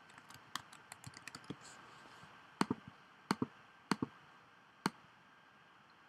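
Typing on a computer keyboard. Light, quick key taps come in the first two seconds, then a handful of louder, separate clicks follow, some in close pairs.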